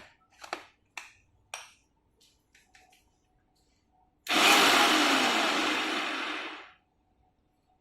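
Preethi Peppy Pro mixer grinder's chopper jar run for one pulse of about two and a half seconds: the motor whirs with the blade chopping quartered onions, easing off slightly before it stops. A few light knocks come before it.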